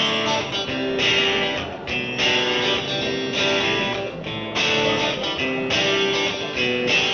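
Background music led by guitar, with chords changing about once a second.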